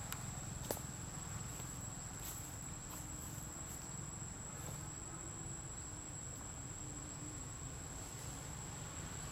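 Forest insects, crickets or cicadas, giving one unbroken high-pitched drone. A low rumble runs underneath, and there is a single sharp click under a second in.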